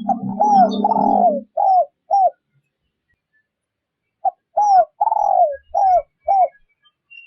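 Spotted dove cooing: two phrases of about five arching coo notes each, the second starting about four seconds in. These are the calls of a decoy dove used to stir newly caught wild doves to sing. A low hum sits under the first phrase, and faint high chirps come between the notes.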